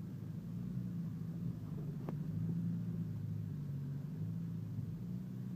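Land Rover engine running at low revs, heard from inside the cab while driving off-road: a steady low drone, with a single sharp click about two seconds in.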